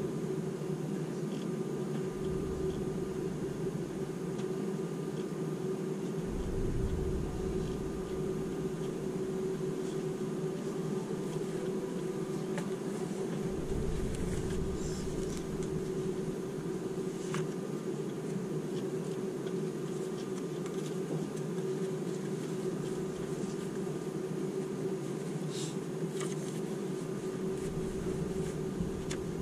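Steady hum inside the cabin of a Seibu 001 series Laview train standing at a platform, from its air conditioning and on-board equipment, holding one constant tone. A few faint low rumbles come and go.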